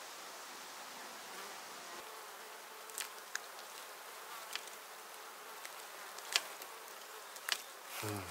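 A fly buzzing around over a faint steady hiss, with a few sharp clicks scattered through the middle. Near the end a short, louder sound drops steeply in pitch.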